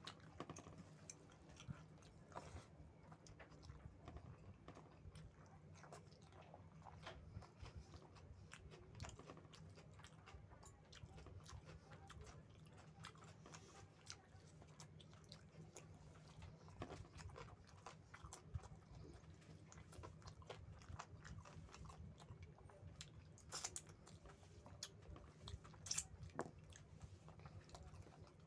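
Close-miked, quiet eating sounds of someone chewing mouthfuls of rice and chicken curry: a continuous run of small wet smacks and clicks, with a couple of sharper ones near the end. A steady low hum runs underneath.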